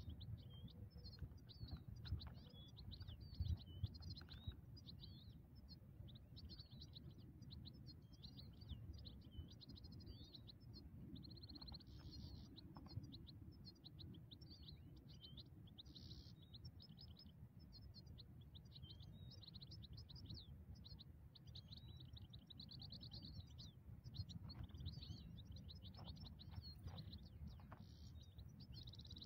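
European goldfinches singing: faint, continuous fast twittering with short trills, over a low rumble.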